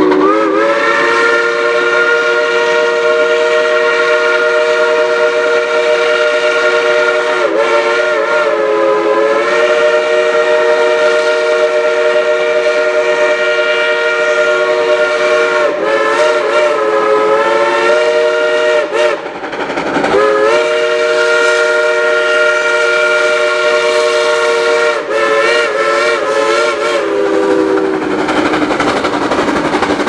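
Shay geared steam locomotive's chime whistle blown in one very long, loud chord, several tones sounding together. It bends and wavers in pitch a few times as it is worked, and stops near the end.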